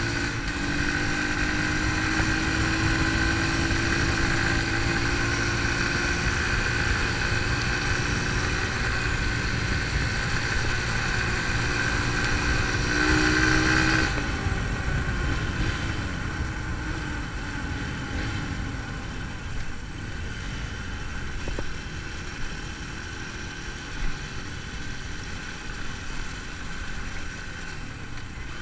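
Dirt bike engine running under steady throttle while riding on a gravel road, its note rising slightly. About halfway through, the throttle is eased off and the engine note drops and quiets, with a few small knocks from the bike over the road.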